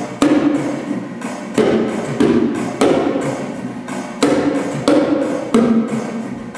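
A pair of small hand drums struck in short rhythmic patterns, alternating between a lower and a higher drum. Each stroke rings briefly.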